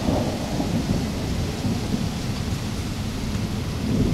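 Thunderstorm: a long, low rumble of thunder that swells slightly near the end, over a steady hiss of rain.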